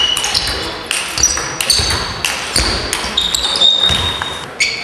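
Table tennis rally: the ball clicks rapidly and irregularly off bats and table, with short high squeaks from shoes on the hall floor between the hits.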